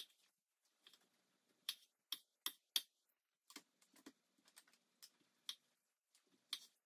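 Kitchen knife halving small tomatoes, its blade tapping down on a cutting board in a string of short, sharp, irregular taps.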